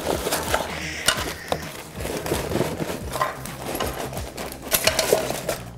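Plastic bags of Wange building bricks rustling and clattering as they are taken out of a torn cardboard set box, with the paper instruction manual handled: irregular small clicks and crinkling throughout.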